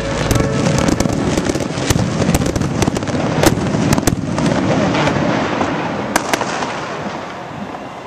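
Close-proximity pyrotechnics firing: a rapid run of sharp cracks and pops over a steady rushing hiss, thinning out and fading over the last two seconds or so as the display ends.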